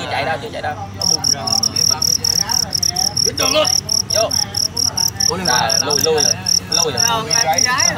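Male fighting cricket chirping: a loud, high, evenly pulsed chirp, about four to five pulses a second, starting about a second in.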